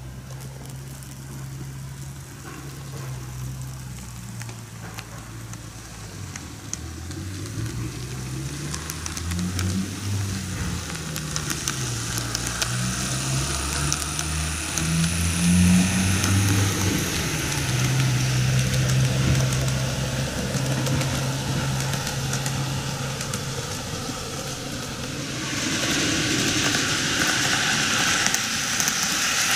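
TOMIX N-gauge model trains running on sectional track: a low electric motor hum that shifts up and down in pitch, louder as the Meitetsu 8800 Panorama DX passes. Near the end a brighter rattle of wheels on rail rises as the KiHa 8200 set approaches.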